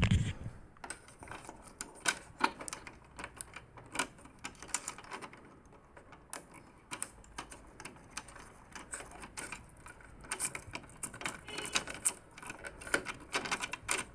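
Irregular clicks, taps and knocks of hard plastic parts being handled and fitted as a Canon MF4450 printer is reassembled, with a heavier knock at the very start.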